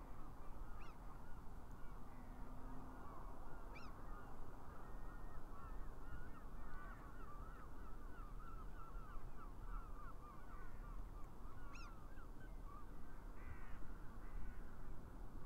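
A flock of geese calling: many short honking calls overlapping, thickest around the middle, over a steady low rumble.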